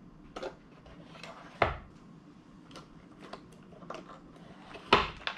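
Stacks of board-game cards being squared and set into a card storage box: scattered light taps and clicks, with two sharper knocks about one and a half seconds in and again near the end, the second the loudest.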